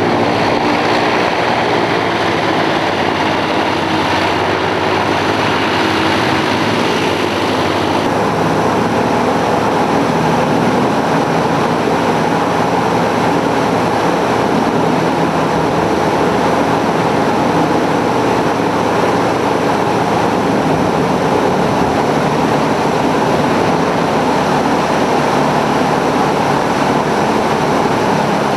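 Airboat engine and rear air propeller running loud and steady at speed, with a small shift in the note about eight seconds in.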